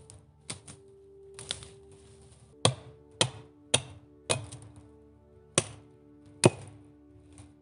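Axe chopping at an upright wooden pole: four quick strokes about half a second apart, then two more after a short pause, with a few lighter knocks before them. Soft background music with long held notes plays underneath.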